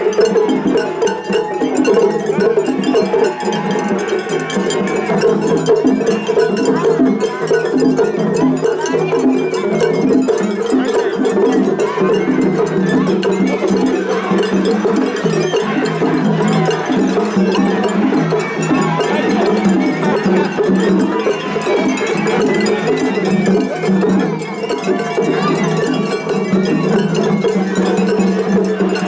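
Several Japanese festival hayashi ensembles playing at once in a competitive clash: a dense, continuous din of taiko drums, bamboo flutes and a clanging hand-struck gong (atarigane), the rhythms overlapping without a break.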